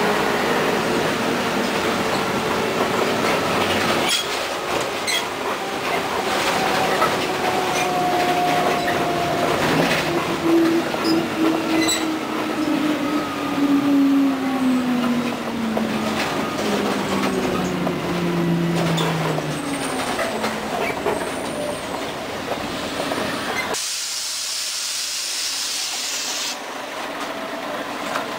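Inside a 1996 Scania CN113ALB articulated city bus on a wet road: steady road and tyre noise, with a drivetrain whine that falls in pitch as the bus slows to a stop. Near the end the low rumble drops away and the pneumatic doors let out a short hiss of compressed air as they open.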